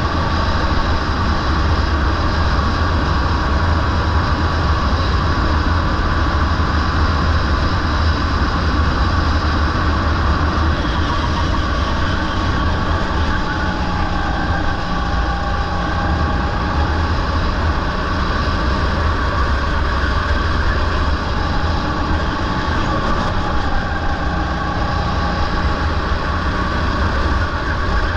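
Rental go-kart engine running at racing speed, heard on the kart's onboard camera as a steady low rumble mixed with wind noise. A faint engine note drifts down and back up a little as the kart takes the corners.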